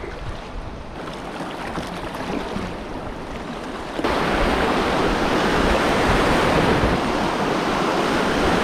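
Rushing river rapids around a kayak running through them: steady whitewater noise that gets louder and closer about four seconds in.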